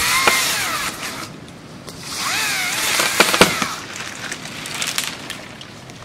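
Small chainsaw revving up and down in two bursts while cutting, with a few sharp knocks around three seconds in; it dies down after about four seconds.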